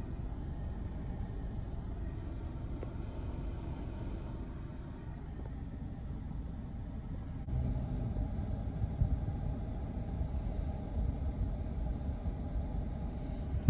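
A car's low, steady cabin rumble as it pulls up to a gate and idles; about halfway through the sound grows louder and fuller.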